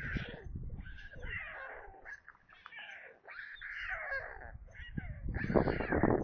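White stork chicks giving cat-like mewing begging calls: many short, overlapping calls that slide up and down in pitch. A rush of low noise joins them near the end.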